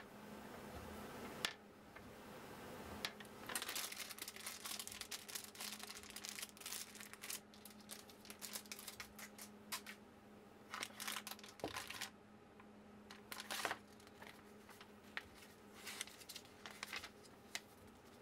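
Faint handling noises on a workbench: scattered clicks of small metal parts and tools being set down, with rustling and crinkling of plastic packaging, over a steady low hum.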